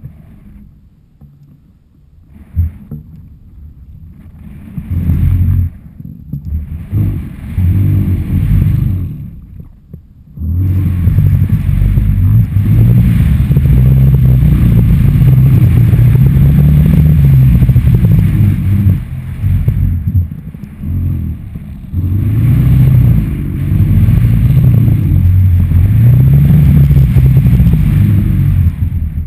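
Wind buffeting the microphone of a camera carried on a flying stunt kite: a low rumble with a wavering hum, quiet at first, then swelling in gusts and running loud and nearly unbroken from about a third of the way in as the kite speeds up.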